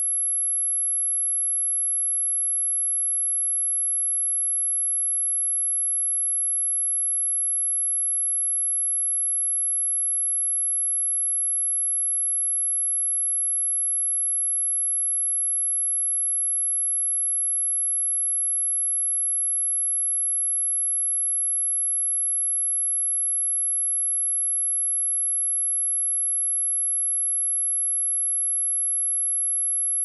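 A steady, unbroken pure sine-wave test tone at 11,133 Hz: a single high-pitched whistle holding one pitch and level, played as a speaker-test and speaker-cleaning tone.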